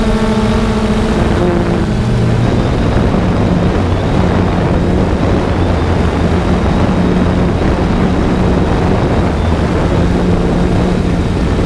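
3DR Solo quadcopter's electric motors and propellers running in flight, heard from a GoPro mounted on the drone: a steady, loud whirring hum with rushing air noise. A higher whine fades out in the first two seconds.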